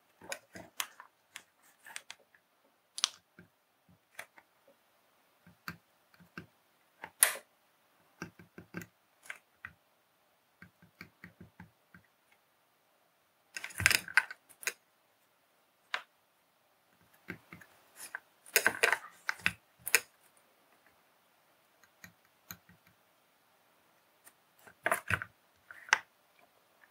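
Faint, irregular small clicks and taps of hand soldering work: tweezers and a soldering iron tip touching a small circuit board and the mat beneath it, with near-quiet gaps and a few louder clusters of taps.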